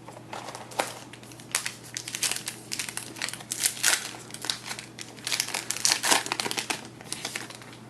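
Crinkling and tearing of a trading-card pack wrapper being opened and handled: a string of irregular crackles.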